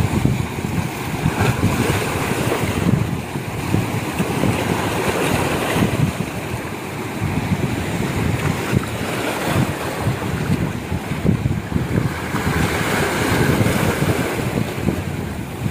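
Sea surf washing and breaking against shoreline rocks, a steady rush that swells and falls, with wind buffeting the microphone.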